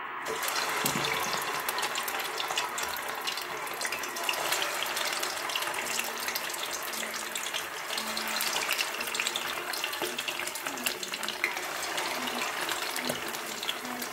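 Fish cakes frying in oil in a stainless steel pot: a steady sizzling hiss full of fine crackles that starts suddenly as the first cakes go in.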